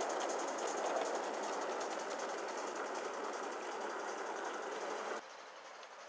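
Gauge 1 live-steam model of a Midland Railway Tilbury tank locomotive running with its coaches: a steady hiss and fast rhythmic beat, easing slightly. It cuts off sharply about five seconds in, leaving a quieter outdoor background.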